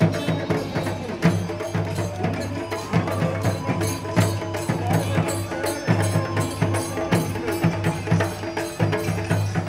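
A group of cylindrical drums, played with sticks, beating a fast, steady rhythm, with a few sustained tones held underneath the drumming.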